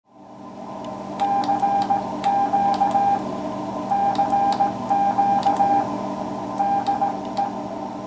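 Morse code (CW) sent by hand on a key: a steady medium-high beep keyed into dots and dashes in groups with short gaps between them, and a sharp click from the key at each press. A steady low hum and hiss sit underneath.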